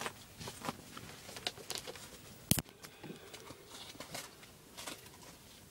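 Scattered light clicks and knocks, with one sharp, louder knock about two and a half seconds in.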